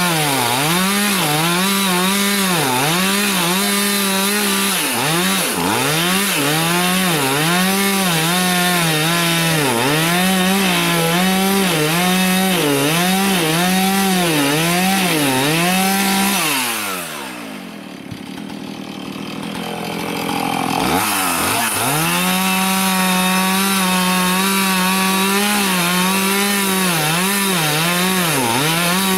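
Two-stroke chainsaw cutting through a hard oak log at full throttle, its engine note dipping and recovering again and again as the chain bites into the wood. About two-thirds of the way through, the throttle is let off and the engine falls to a quieter idle for a few seconds, then revs back up and keeps cutting.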